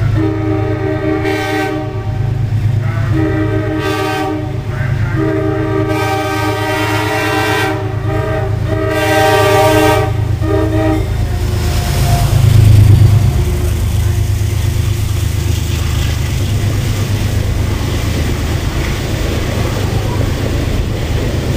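Amtrak locomotive's multi-note air horn sounding a string of about six blasts, one of them long, as a horn show. The train then comes past at speed with a steady rumble, loudest just after the horn stops.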